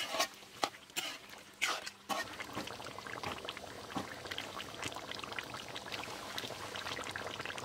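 Pork and radish curry simmering in a large pot, a dense crackle of bubbles popping in the thick gravy. In the first two seconds a few sharp knocks from a spoon in the pot come before it.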